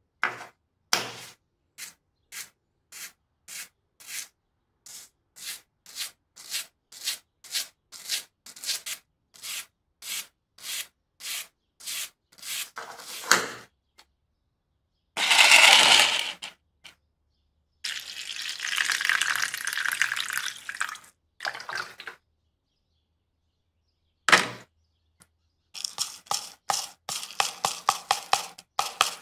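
A stiff brush scrubbing rust and dirt off a small metal lighter in short strokes, about two a second. Later come two longer rushing noises, a single click, and granular powder poured over the lighter in a plastic tub, pattering in quick grains.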